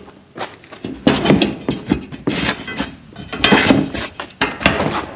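Unbolted steel tube top bars of an IBC tote's cage being pulled out, clanking and rattling against the cage frame in a run of irregular knocks.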